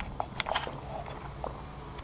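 A person drinking water from a plastic sports bottle: several short swallows and wet sucking clicks, most in the first second.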